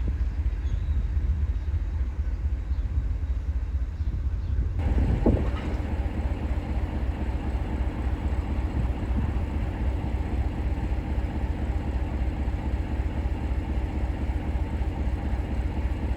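Train running with a steady low rumble. The recording changes about five seconds in, and a brief rising sound follows the change.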